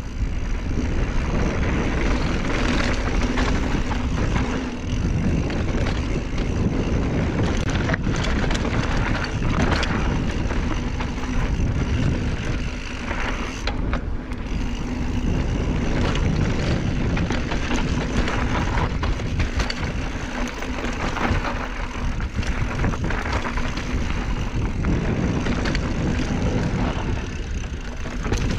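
Wind rushing over a chest-mounted action camera's microphone as a mountain bike descends a dirt trail, with the tyres rolling over loose dirt and scattered clicks and knocks from the bike.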